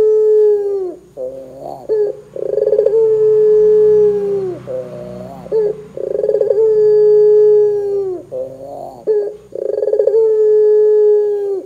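Barbary dove (puter) calling. It gives long drawn-out coos, each with a rattling start, a held note and a drop in pitch at the end, about three a window. Short rising chuckling notes come between them.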